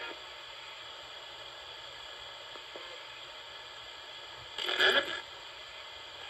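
RadioShack pocket radio used as a ghost box, sweeping through FM stations with a steady static hiss, broken about four and a half seconds in by a brief loud burst of sound from a passing station.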